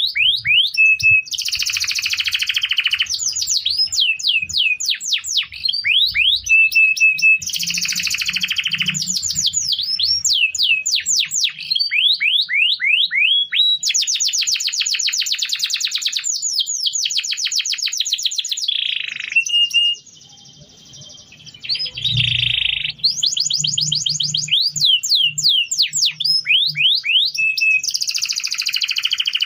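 Domestic canary singing a long, fast song of rapid trills and repeated rising notes, with a brief pause about twenty seconds in.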